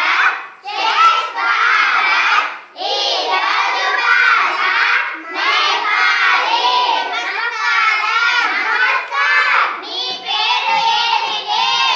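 A group of young schoolchildren singing a song together, with short breaks between phrases near the start.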